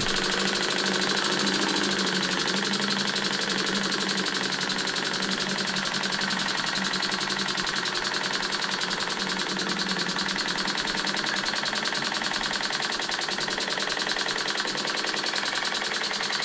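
Stuart Models single-cylinder oscillating engine running steadily on compressed air, giving quick, even exhaust puffs. A steady low hum under it fades over the first few seconds.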